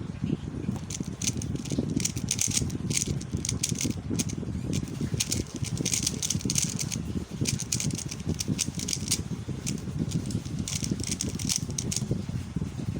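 QiYi X-Man Tornado V1 speed cube being turned fast through a solve: rapid runs of plastic clicking and clacking in quick bursts, over a steady low rumble. The clicking starts about a second in and stops about a second before the end.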